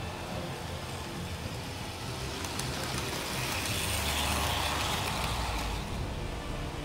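American Flyer Santa Fe PA/PB toy diesel train running on S-gauge track: a steady electric motor and gear hum with wheel noise. It grows louder as the locomotive passes close by about four seconds in, then eases off.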